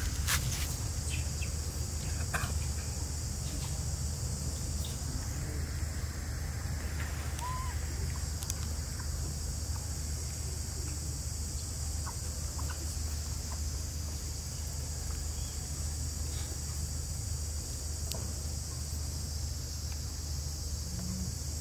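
Forest ambience: a steady, high-pitched insect drone, with a low rumble underneath and a few faint clicks and one small chirp.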